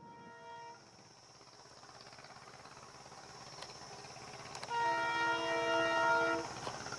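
Diesel locomotive horn sounding: a short blast at the start, then a longer, louder blast of about a second and a half near the end. Underneath, the rumble of the approaching train grows steadily louder.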